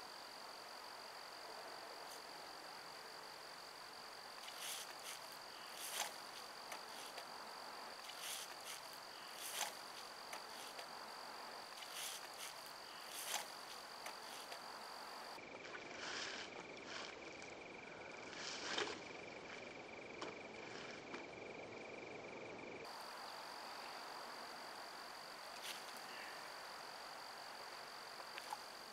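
Faint scattered clicks and rustles of hands handling fishing tackle and a caught fish, over a steady high-pitched whine.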